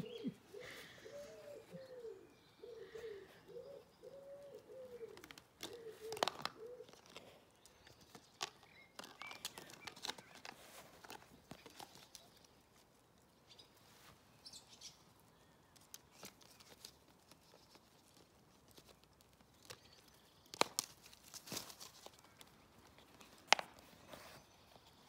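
A pigeon cooing in a run of rising-and-falling notes through the first seven seconds or so. Scattered light knocks and scrapes follow, from a puppy's plastic plant pot on stone paving and grass, with a few sharper knocks near the end.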